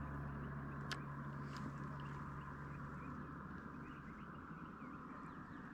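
Faint outdoor ambience with many small bird chirps, slowly fading out, and a single sharp click about a second in.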